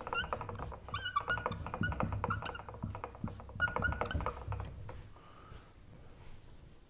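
Dry-erase marker squeaking and tapping on a whiteboard as a word is written: a quick run of short, high squeaks and clicks that stops about five seconds in.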